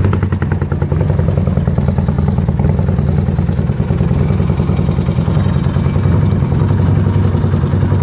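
1979 Yamaha XS650 Special's air-cooled 650 cc parallel-twin engine idling steadily while warming up after a cold start.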